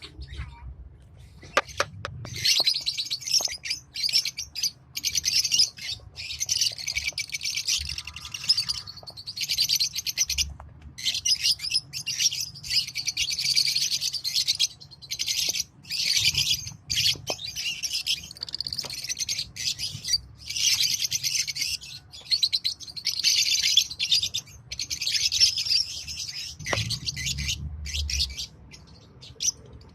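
Lovebirds chirping and chattering shrilly in dense overlapping bouts with brief pauses.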